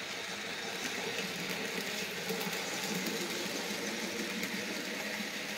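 Model train running past: the motor of an old Kato Alco PA diesel model locomotive whirring steadily, with the wheels rolling and lightly ticking along the track as the passenger cars follow.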